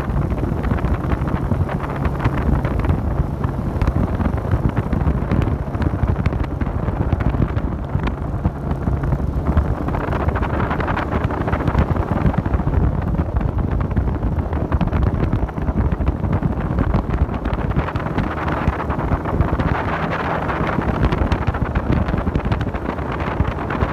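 Wind buffeting the microphone on a moving motorboat, over the steady running of the boat's engine.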